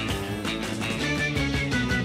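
End-credits theme music with a steady beat under a melody of held notes.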